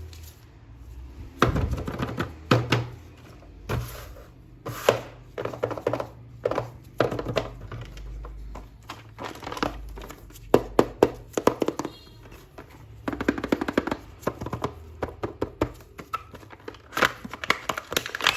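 Hands unboxing and handling a plastic action figure and its packaging: an irregular run of clicks, taps and crinkles in clusters.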